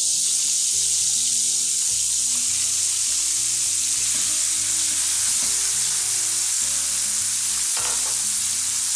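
Strips of raw beef topside sizzling steadily in hot melted butter and olive oil in a frying pan as they are tipped in and pushed around with a spatula.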